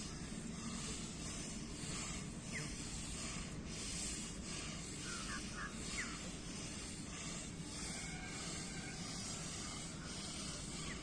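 A group of people breathing in through the nose and blowing out hard through the mouth, the exhales hissing over and over in an uneven overlapping rhythm, as in a forced-exhale breathing drill.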